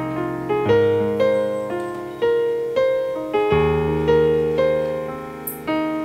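Background piano music: a slow melody of single notes struck about every half second over held bass notes that change twice.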